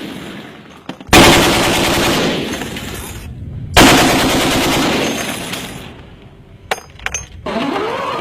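Two long bursts of automatic gunfire, each starting sharply and trailing off over about two seconds, followed by a few short sharp cracks near the end.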